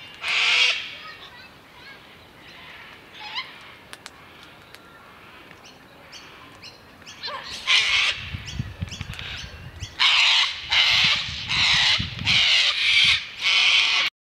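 Gang-gang cockatoos giving harsh, creaky rasping calls. There is one right at the start, another little past halfway, then a run of five loud calls close together in the last four seconds.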